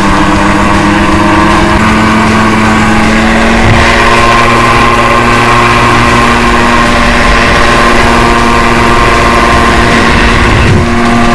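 Gyrocopter engine and pusher propeller running at high power on the takeoff roll, a steady droning note that jumps to a different pitch a few times, with wind rushing over the open cockpit's camera microphone.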